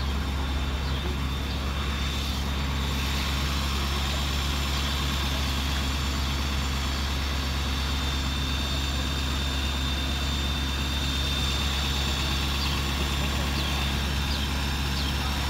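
Tow truck engine idling with a steady low drone.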